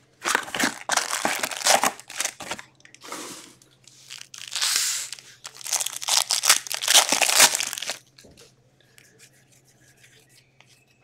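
Plastic wrapping of SP Authentic hockey card packaging being torn open and crinkled in repeated bursts for about eight seconds, then only a few faint ticks.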